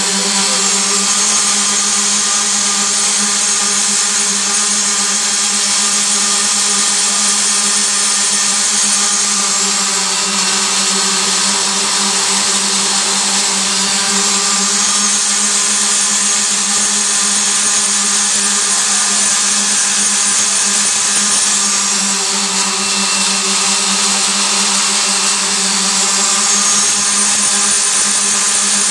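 Roller screed paver's row of electric concrete vibrator motors running together, a steady hum with one strong low tone, as the machine compacts and levels wet concrete.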